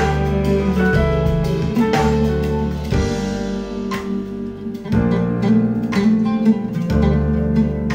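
Recorded music played back through Cabasse Antigua MC170 loudspeakers and picked up by room microphones: an instrumental passage with plucked strings over sustained deep bass notes.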